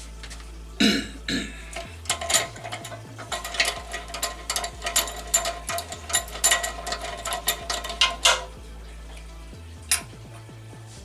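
Steel mower blade clanking and clicking as it is handled and set on a cone blade balancer, many sharp metal knocks with a short ring for several seconds, then a single click near the end. A short rough burst about a second in, over a steady low hum.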